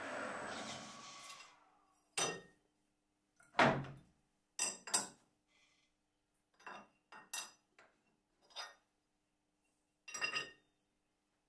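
A lathe spindle winding down in the first second and a half, followed by scattered sharp metallic clinks and knocks, about nine in all, of metal tools and parts being handled and set down.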